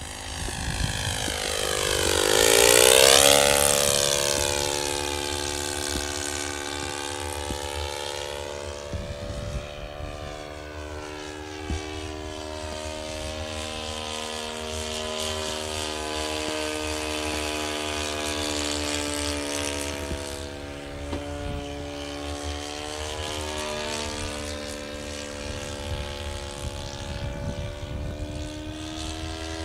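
OS FS-26 Surpass single-cylinder four-stroke glow engine of a radio-controlled Fokker Dr.I triplane in flight, running at steady throttle. It is loudest as the plane passes close about three seconds in, its pitch dropping sharply as it goes by. After that the tone holds steady with slight rises and falls as the plane flies farther off.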